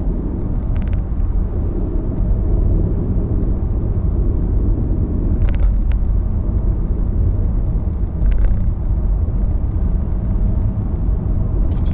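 Steady low rumble of a car's engine and tyres on the road while driving at city-street speed, heard from inside the car.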